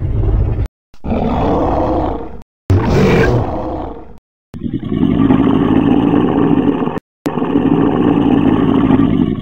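Dinosaur roar sound effects for a large theropod, played as a string of separate calls with brief silences between: a low growl, two shorter roars, then two long, steady roars that sound alike.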